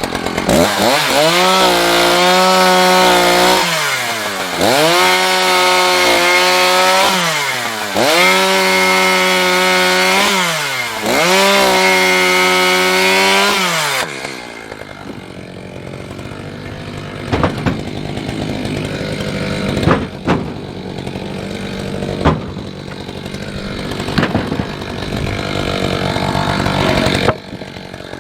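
Chainsaw cutting firewood: four bursts at full throttle, each about three seconds, rising in pitch, holding through the cut and dropping back. In the second half the saw idles, with a few sharp knocks of wood.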